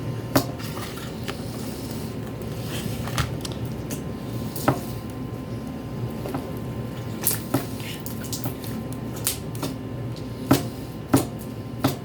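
Homemade glue slime being handled, with scattered short squelches and sharp pops as it is squeezed and stretched, over a low steady hum.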